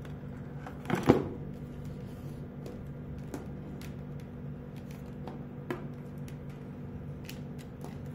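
Hands handling cables and hardware on a wooden desk: one loud knock about a second in as a part is set down, then scattered light clicks and rustles of wires, over a steady low hum.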